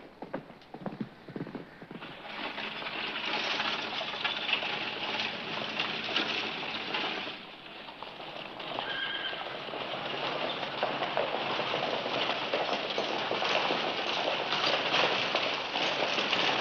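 Horses' hooves: a few separate clops at first, then a dense galloping clatter from about two seconds in, with a brief horse whinny near the middle.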